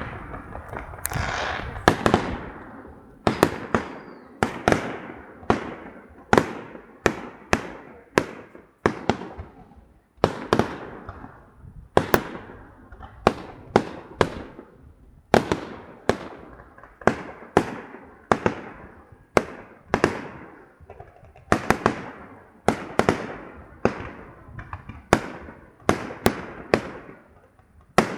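Fireworks display with aerial shells bursting in quick succession: sharp bangs about every second, each trailing off in echo.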